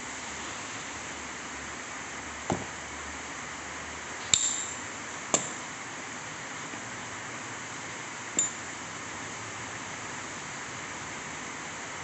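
Four sharp metallic clinks and knocks of tools and parts handled while a rotary hammer is being taken apart, two of them ringing briefly high, over a steady hiss.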